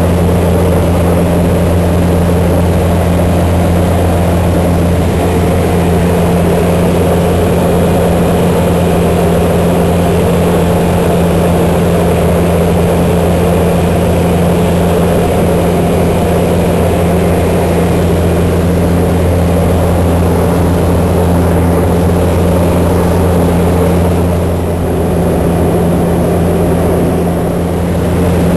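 De Havilland Canada DHC-2 Turbo Beaver's turboprop engine and propeller running steadily: a loud, even drone with a deep hum, dipping slightly in level near the end.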